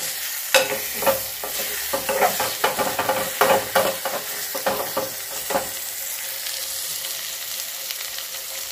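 Eggs sizzling in hot oil while a steel spoon stirs and breaks them up, scraping and clicking against the pan. The spoon strokes stop about two thirds of the way through, leaving a steady sizzle.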